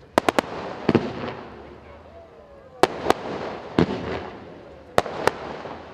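Fireworks display: a series of sharp bangs from aerial shells bursting, three in quick succession at the very start, then single and paired reports about every second, each trailing off in crackle and echo.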